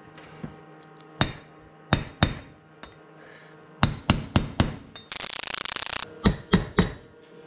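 Hammer striking a steel pin punch to drive a wheel bearing's outer race into a Land Cruiser front hub: about ten sharp, ringing metallic taps in irregular groups. A harsh noise about a second long comes about five seconds in.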